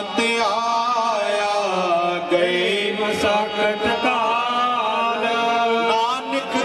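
Sikh gurbani kirtan: a hymn sung in a chanting melody over a steady held harmonium drone.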